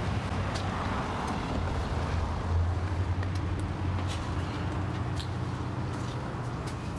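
Motor vehicle running: a steady low rumble, with a few faint clicks over it.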